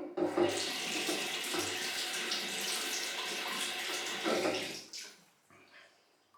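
Water running from a tap into a sink for about five seconds, then shut off, as during a wet shave.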